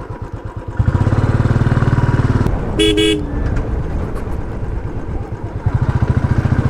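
Motorcycle engine running with a steady pulsing beat, getting louder about a second in as it is given more throttle. A vehicle horn gives one short two-tone toot near the middle.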